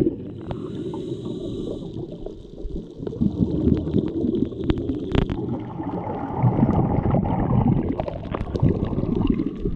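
Muffled water gurgling and sloshing around a GoPro camera held in the sea, heavy in the low end, with scattered sharp clicks.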